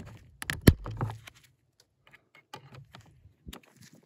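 Diagonal cutters snipping the steel flush cable of a Thetford Aqua Magic IV toilet pedal: a sharp snap under a second in, then a few lighter clicks.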